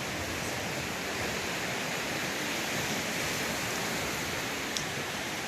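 Waves washing steadily onto the lakeshore, a continuous rushing surf with a faint click near the end.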